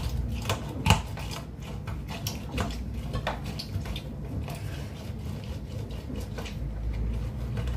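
Half a lemon being twisted and pressed on a plastic hand citrus juicer, then squeezed by hand: a string of small clicks and scrapes, over a low steady hum.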